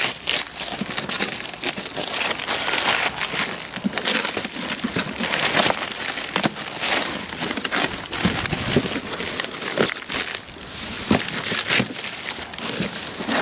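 Cardboard box being opened and its packing material handled: continuous crinkling and rustling with many small crackles.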